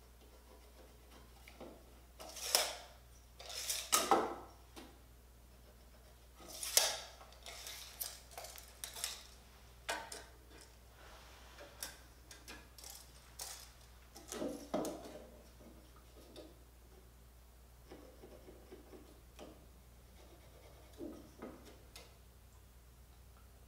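Intermittent workbench handling sounds: short scrapes and rubs of wood, with light clicks and knocks as boards and hand tools, among them a steel tape measure, are moved and set down. The loudest are a few brief scraping strokes in the first seven seconds, then softer scattered clicks.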